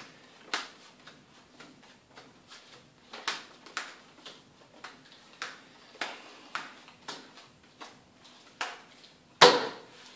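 Playing cards being dealt one at a time onto a card mat: a run of short, light card snaps about every half second, with one louder knock near the end.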